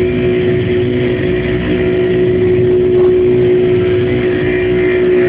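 Live electronic noise music: one loud, steady drone tone held over a dense, rumbling low noise, with no beat.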